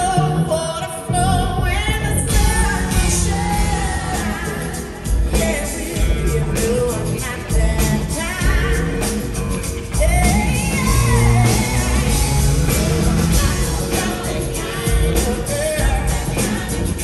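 Live band playing a pop-rock song with a woman singing the lead vocal.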